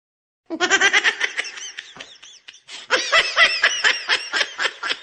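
High-pitched laughter sound effect: a voice laughing in quick, rapid bursts that start about half a second in, break off briefly near the middle, then pick up again in another run.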